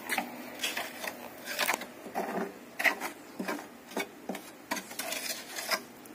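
Bare hand rubbing and smearing wet cement mortar over a patch on a cement water tank wall, in short irregular strokes, a few a second.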